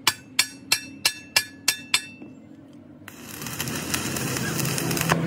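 Chipping hammer striking weld slag on a steel truck axle housing: seven sharp, ringing blows, about three a second. After a short pause, an electric welding arc starts and crackles steadily for the last two seconds.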